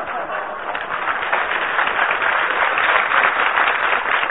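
Radio studio audience laughing and applauding after a punchline, a dense, steady wash of laughter and clapping.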